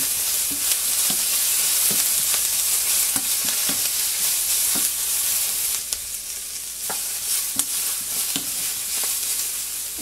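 Diced vegetables and turkey kielbasa sizzling in olive oil in a hot cast iron pan, stirred with a wooden spoon that scrapes and taps against the pan now and then. The sizzle is a little louder in the first half.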